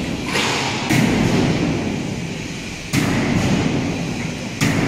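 Heavy metal bangs and thuds in a steel tank fabrication workshop: four sudden blows, a little after the start, about a second in, at three seconds and near the end, each dying away over a second or so.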